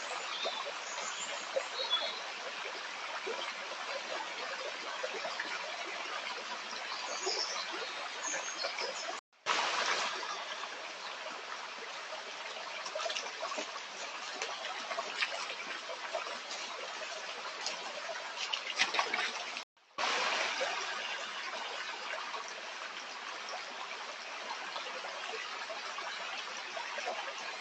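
Stream water running and trickling steadily, cutting out for a split second twice.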